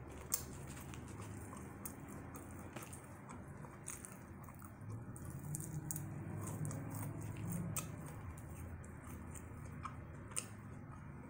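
Faint close-up eating sounds: a Flamin' Hot Cheeto-crusted fried shrimp being bitten and chewed, with scattered small crunches and wet mouth clicks. A low closed-mouth hum comes in the middle.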